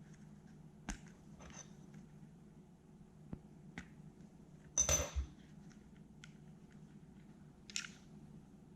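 Glock 19 pistol parts being handled during reassembly: scattered light metallic and polymer clicks, with a louder cluster of metal clacks about five seconds in.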